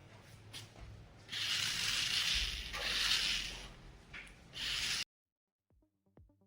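Rough hissing, rubbing noise in several surges that cuts off suddenly about five seconds in. Then an electronic music beat begins quietly near the end.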